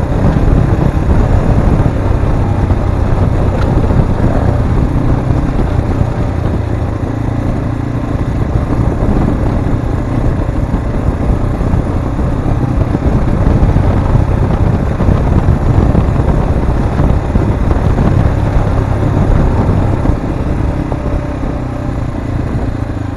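Zongshen RX3 Cyclone motorcycle engine running as the bike is ridden, its pitch shifting slightly up and down with the throttle.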